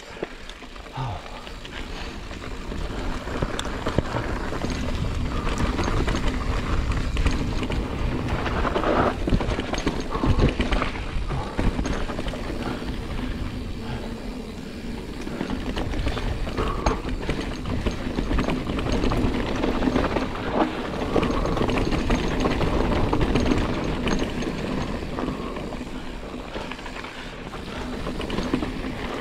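Giant Reign 29 mountain bike riding down a rough dirt trail: tyre noise and rapid knocks and rattles over rocks and bumps, under a steady wind rumble on the mic. It gets louder a couple of seconds in as the bike picks up speed.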